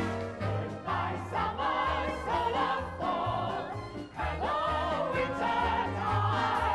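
A mixed group of men and women singing a music-hall song together in chorus, over band accompaniment with a regular bass beat.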